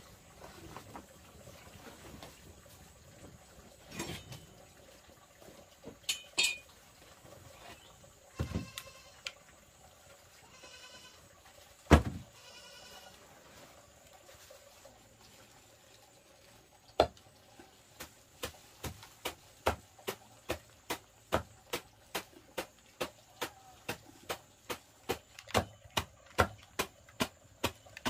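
A few short animal bleats in the first half, with a single loud knock about twelve seconds in; then, from about seventeen seconds in, a steady run of chopping strokes, about two a second, coming slightly faster near the end.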